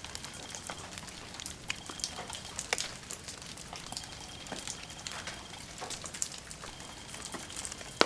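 Water drops and wet snow pattering onto garden leaves: an irregular scatter of sharp little ticks over a soft steady hiss.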